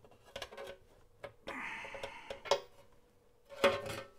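Small metallic clicks and taps of a 5/8 wrench against a nut and a thin sheet-metal case, a brief scrape about a second and a half in, then a louder clatter near the end as the case is picked up and turned.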